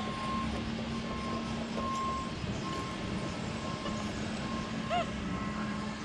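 XP Deus metal detector with HF coil giving short, repeated beeps of one steady pitch as the coil is swept over the ground, over a steady low hum. A brief chirp sounds about five seconds in.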